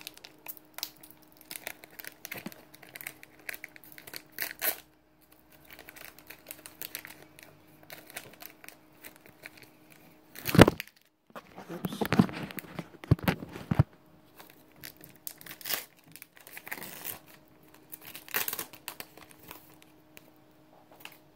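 Foil Pokémon card booster packs being handled and torn open: irregular crinkling and rustling of the wrappers, with one sudden loud sound about halfway through. A faint steady hum runs underneath.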